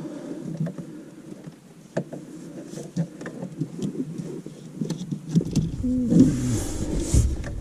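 Handling noise from bundling loose wiring by hand: rustling and rubbing with a few sharp clicks, growing fuller and busier near the end.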